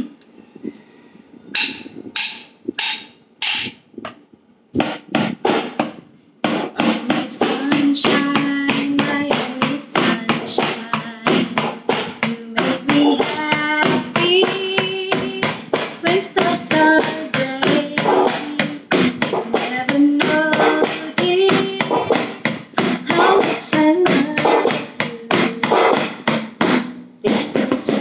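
Wooden sticks tapped in rhythm: a few spaced taps at first, then fast, steady tapping from about five seconds in. A woman sings a melody over the tapping from about eight seconds in.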